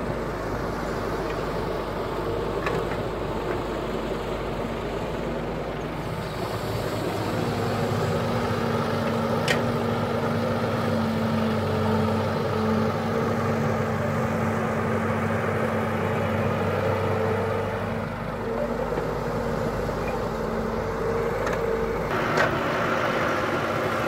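Diesel engines of a Caterpillar hydraulic excavator and a dump truck running steadily while the excavator digs and loads soil, the engine note shifting a few times. There are a few short sharp knocks along the way.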